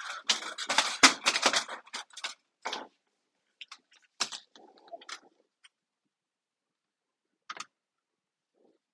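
Thin folding aluminium windscreen panels clattering and rattling as they are handled and folded, a rapid run of light metallic clicks. The clicks thin out to a few scattered ones, with a short snip near the end.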